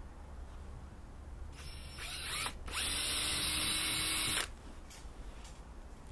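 Cordless drill with a 3 mm bit drilling a pilot hole through the bow of a Royalex canoe. It spins up about a second and a half in, breaks off briefly, then runs steadily for about two seconds and stops.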